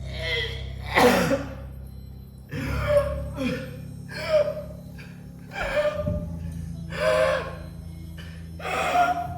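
A person gasping for breath again and again, about eight gasps, over a low steady drone of background music.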